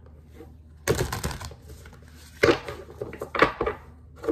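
Oracle cards being handled and laid on a wooden desk: a quick run of clicking card edges about a second in, then a few separate slaps and taps.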